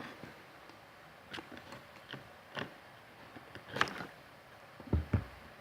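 Scattered small clicks and taps of a screwdriver and fingers working wires into a switch's screw terminals, with two dull thumps near the end.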